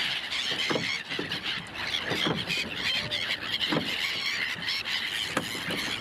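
A large flock of gulls calling all at once: a dense, unbroken chorus of high cries.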